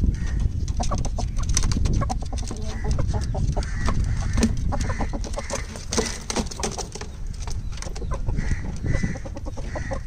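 Caged chickens clucking in short repeated calls, over many quick clicks and taps and a steady low rumble.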